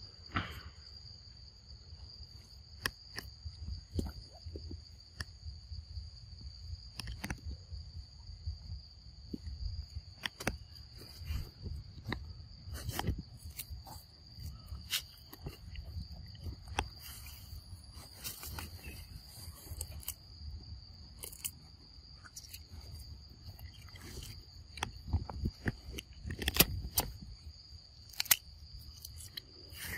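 Steady high-pitched drone of insects in the forest, with many scattered short clicks, knocks and rustles and a constant low rumble underneath.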